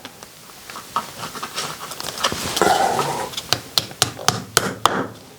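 Irregular light clicks and taps of small hardware being handled, with some rustling: wall plugs and screws being fitted while a box is mounted to the wall.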